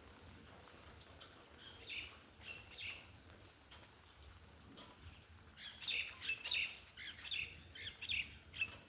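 Birds chirping: a few short chirps about two seconds in, then a busier run of chirps through the second half.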